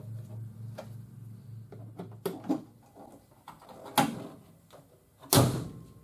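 A few light knocks and clicks, then a car hood dropped shut with one loud thump near the end.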